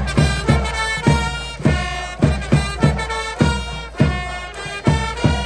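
A fan cheering band's trumpets play a cheer tune in held notes over a steady drum beat of almost two hits a second.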